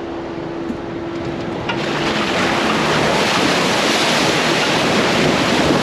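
Ford Bronco driving through a mud hole, with a loud rushing splash of water and mud that starts about two seconds in and runs on over a steady engine note.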